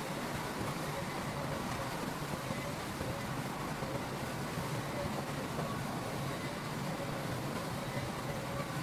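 Heavy earthmoving machinery running steadily: a continuous engine drone with a faint steady whine, with no change in load or pitch.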